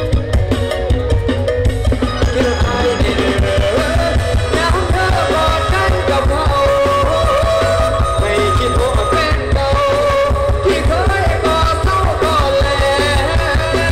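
Loud live band music from a Thai stage show, played through a PA: a singer's melody over keyboard, bass and a steady drum beat.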